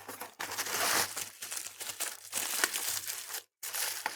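Packaging being crinkled and torn open by hand, a dense run of crackles and rustles with a brief pause near the end.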